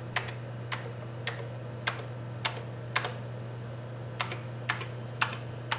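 Amiga 4000 keyboard keys pressed one at a time, a sharp click about every half second, over a steady low hum. The key clicks sound just like new.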